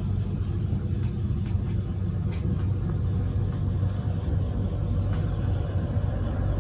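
Steady low rumble, with a few faint, scattered clicks.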